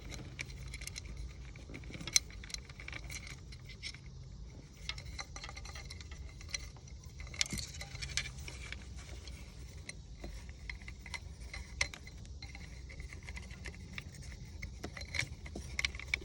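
Light clicks, taps and rattles of small parts and wiring being handled as the trim switch wires are fed through the housing of a Mercury Commander 2000 remote control, with one sharper click about two seconds in. A low steady hum runs underneath.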